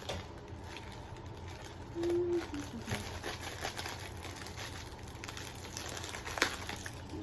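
Faint rustling and handling of packaging with scattered small clicks, a short low note about two seconds in, and a sharp click near the end.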